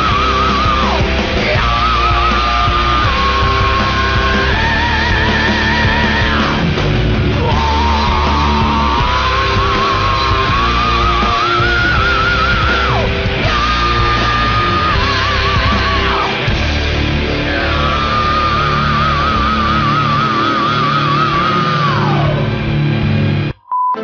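Heavy rock music with guitars under a lead melody that wavers with wide vibrato and slides up and down between notes. The music cuts out suddenly near the end.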